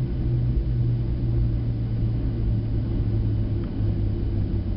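Cabin noise of a jet airliner rolling along the runway after landing: a steady low rumble with a deep engine hum that drops slightly in pitch twice, about half a second in and near the end, as the aircraft slows.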